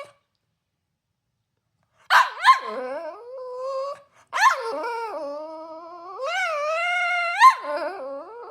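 Cavalier King Charles Spaniel angrily vocalising to demand more breakfast. After a silent first two seconds come sharp barks that run into long, wavering whining calls, three times, the middle one rising in pitch.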